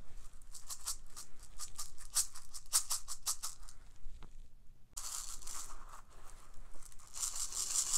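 Heavy-weight plastic poly beads rattling as they are shaken through a plastic funnel into a fabric pouch: a fast, rapid rattle for about three and a half seconds, a short pause, then a denser, hissing trickle of beads pouring through.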